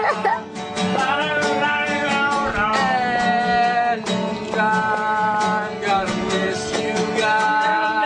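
A song: a singing voice over guitar accompaniment.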